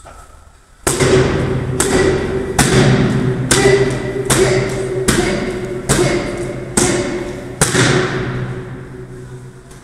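Nine sharp smacks of kicks landing on a handheld focus mitt, a little under a second apart, each echoing.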